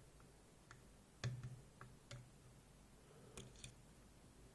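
Faint, scattered clicks of a lock pick lifting the finger pins of a Ruko Triton lock's sidebar under tension, about half a dozen small ticks with the loudest about a second in.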